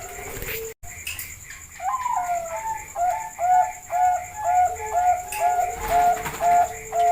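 Zebra dove (perkutut bangkok) singing its cooing song: a rapid, even run of short notes, about two a second, opening with a gliding note and with a fainter, lower held coo beneath.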